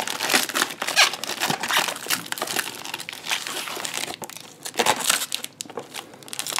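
Plastic wrap and packing tape on a parcel crinkling and crackling as they are cut and pulled back by hand, in irregular crackles with a brief lull about four seconds in.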